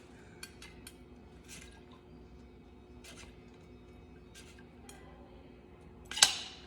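Scattered light clicks and taps of a glass bottle and barware being handled on a table, with one louder knock about six seconds in.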